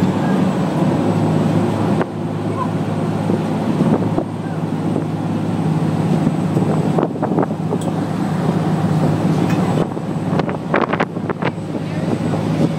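A ferry's engines droning steadily in a low hum, with wind buffeting the microphone on the open deck.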